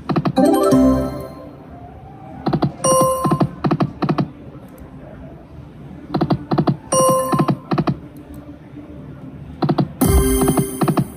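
Electronic sound effects from a Light & Wonder Quick Hits Explosion video slot machine as the reels spin and stop: rapid clicking ticks mixed with short chiming tones. They come in four bursts, one for each spin, a few seconds apart.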